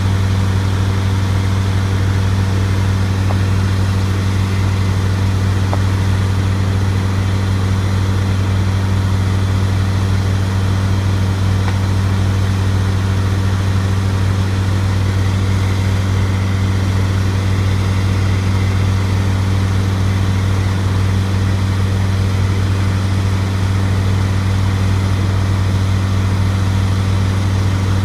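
Bobcat skid-steer loader's engine running at a steady speed, an even low hum with no revving or change in pitch.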